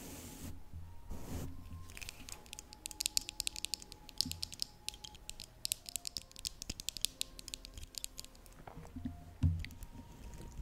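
Rapid close-up tapping and clicking on an object, many small sharp clicks a second for about six seconds, over soft background music. A brief hiss comes just at the start, and there are a couple of soft thumps.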